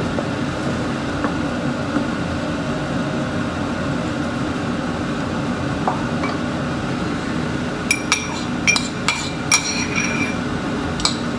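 A run of sharp clinks from about eight seconds in, a metal spoon knocking against a non-stick frying pan, over a steady background hum.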